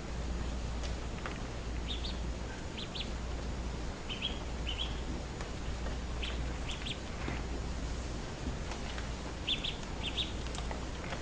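A bird chirping: short high-pitched chirps in quick twos and threes, repeated every second or two, over a steady low hum.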